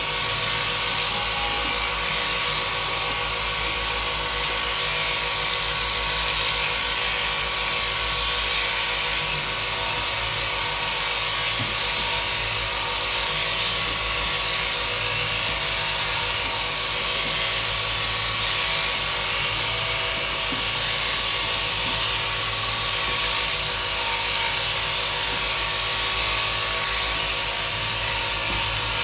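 Sheep-shearing handpiece on its drop-down drive shaft, running steadily while it is pushed through a sheep's fleece.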